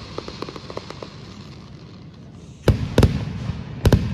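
Fireworks display: faint scattered crackling pops, then about two-thirds of the way in a loud boom followed by more sharp bangs within about a second.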